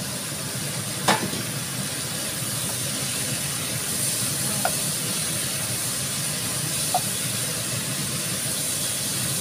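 Chayote and tempeh stir-frying in a pan, sizzling steadily while a wooden spatula turns them. A sharp knock against the pan about a second in, and two lighter taps later.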